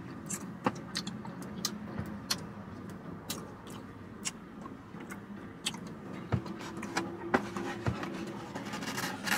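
Eating sounds from fried chicken wings: chewing with many short sharp clicks. Near the end a styrofoam takeout container is handled. A steady low hum fills the car cabin underneath.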